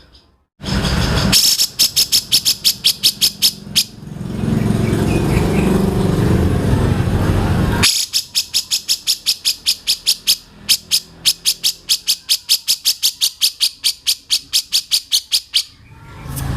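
Tutor recording of a songbird giving rapid chattering runs of sharp repeated notes, about five or six a second, two runs with a rougher noisy stretch between them, used to teach young oriental magpie-robins new phrases.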